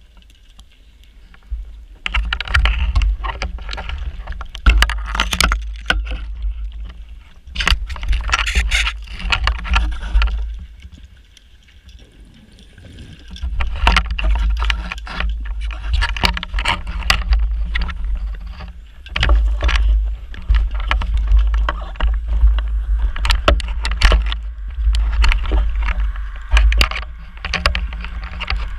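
Diver's exhaled bubbles from a scuba regulator underwater, a low rumble with crackling pops, in long spells broken by short quieter pauses.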